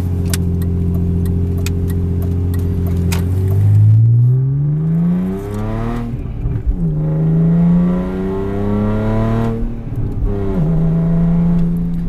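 BMW 330xi's 3.0-litre straight-six, heard from inside the cabin under acceleration. It holds steady revs, then climbs in pitch, and the revs fall at upshifts about six and ten and a half seconds in. There are a few sharp clicks in the first three seconds.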